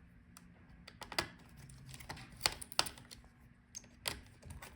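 Scattered sharp clicks and taps of a screwdriver and small metal parts on a laptop's heatsink as it is unscrewed and lifted, with a few louder clicks among fainter ones.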